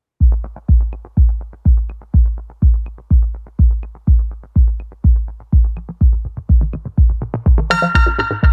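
Electronic background music: a steady kick-drum beat at about two beats a second, with synthesizer notes coming in near the end.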